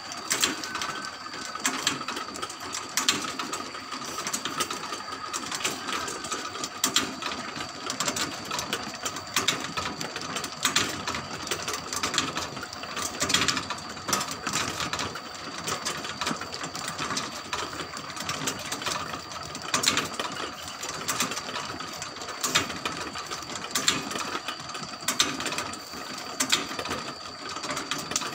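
Motor-driven rotisserie grill's sprocket drive clattering as the spits turn, a steady run of metal clicks over a constant whine.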